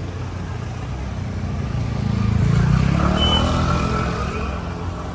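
A motor vehicle's engine running, swelling to its loudest about halfway through and then fading, as of a vehicle going past.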